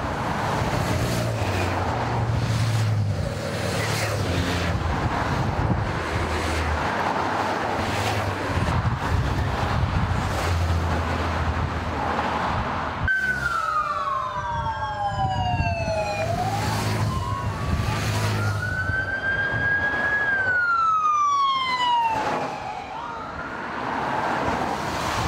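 Convoy motorcycles and cars driving past with a steady noisy rush. About halfway in, a police siren starts suddenly, wailing slowly down and up in pitch.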